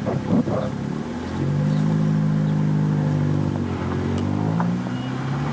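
Coach bus engine running as the bus drives along a dirt road, getting louder a little over a second in and climbing in pitch near the end, with a few knocks in the first second.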